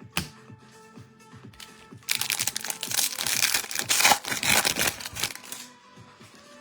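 A trading-card pack wrapper being torn open and crinkled, loud for about three and a half seconds starting about two seconds in, with a single sharp click just after the start. Background music with a steady beat plays underneath.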